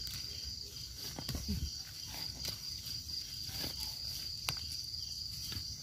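A steady high insect drone runs throughout. Over it come scattered rustles and light snaps as termite mushrooms are pulled by hand from damp leaf litter and soil.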